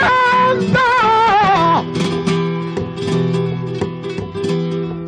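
Flamenco singer drawing out one long, wavering melismatic note over acoustic flamenco guitar; the voice stops a little under two seconds in and the guitar carries on alone, strumming and plucking chords.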